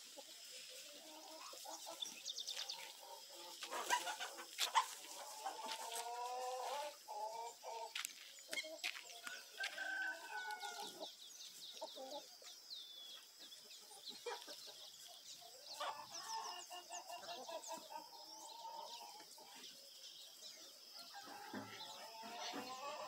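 Chickens clucking and a rooster crowing, with repeated calls in several bouts and scattered sharp clicks.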